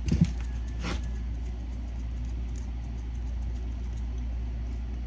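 A steady low hum of some running machine, with a few short knocks of handling in the first second.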